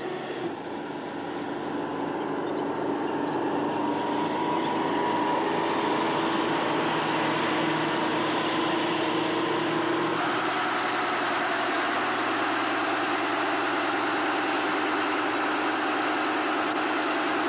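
RWF-Plasser mobile flash butt welder's machinery running: a steady mechanical hum with a few held tones that builds up over the first few seconds, then shifts in pitch about ten seconds in.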